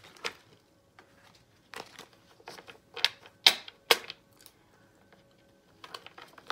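Tarot deck being shuffled by hand: a string of sharp, irregular card clicks and taps, with a short lull in the second half.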